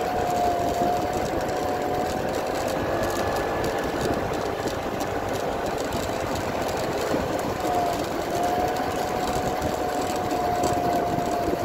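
Sanu kite hummer (a bamboo bow with a taut string) strapped to a moving scooter, humming one slightly wavering tone in the wind of travel. The hum drops out for a few seconds in the middle and comes back: it sounds only in spells, not well. Under it the scooter's small engine runs with steady wind noise.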